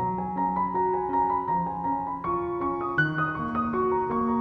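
Background piano music: single notes played at an even pace over held lower notes, with a brighter, higher passage about three seconds in.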